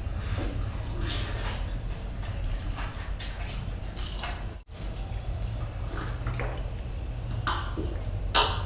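Close-miked eating sounds of a person chewing grilled chicken: wet chewing, lip-smacking and tearing meat from the bone in short irregular smacks. Near the end he drinks from a glass of water, with a louder gulp.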